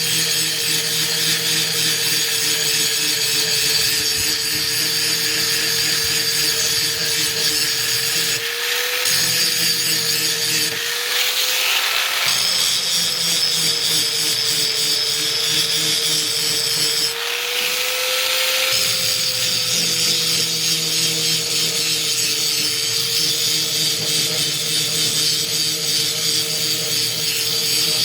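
Power grinder sharpening an axe: the motor runs with a steady whine while the blade grinds on it, and the grinding noise breaks off briefly three times as the axe is lifted and put back.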